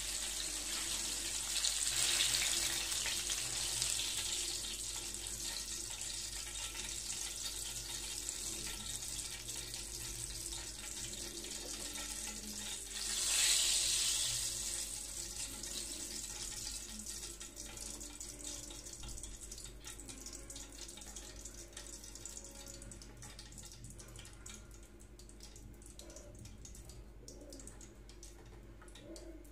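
Curry leaves and green chillies sizzling in hot cooking oil in a small pan, with the burner switched off. The sizzle fades steadily as the oil cools, with a brief louder surge about halfway through as the slotted spoon stirs and lifts leaves from the oil.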